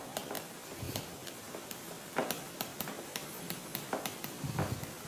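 Handwriting: an irregular run of short scratchy strokes and light taps of a pen against the writing surface, several a second.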